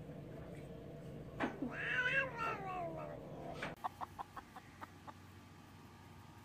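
A cat gives one long, drawn-out meow whose pitch slides down toward its end. It is followed by a quick run of short clicks.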